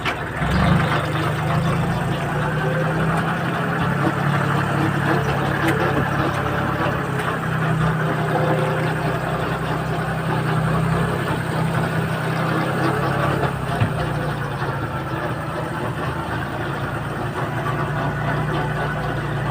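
Farm tractor engine running steadily, a constant low drone.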